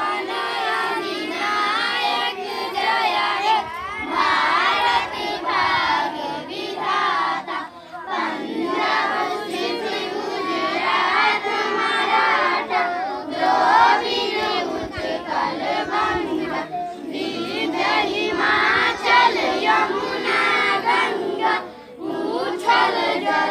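A crowd of schoolchildren singing together in unison, with short breaks between phrases.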